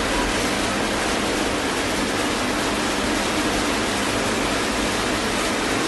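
Two cold spark fountains spraying sparks with a steady, even hiss.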